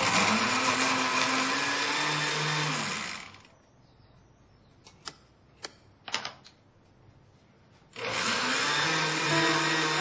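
Electric kitchen blender running for about three seconds and then stopping, a few sharp clicks in the quiet that follows, then the blender switched on again near the end.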